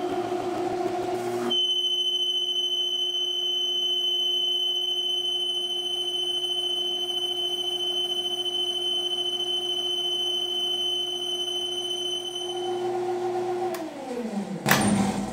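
Metal lathe running with a steady high-pitched whine while a carbide tool turns a steel bar. Near the end the lathe is switched off: the whine stops, the pitch falls as the spindle winds down, and a short loud knock follows.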